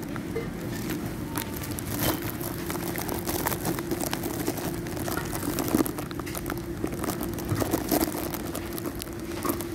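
Supermarket ambience: a steady hum with scattered light crinkling and clicking.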